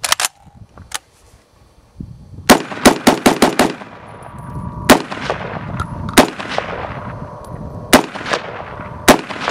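Century Arms R1A1 Sporter, an FN FAL-pattern .308 semi-automatic rifle, firing Venezuelan surplus ammunition: ten shots, with a quick string of six about two seconds in, then four single shots a second or more apart, each trailing off in an echo. A couple of clicks come first.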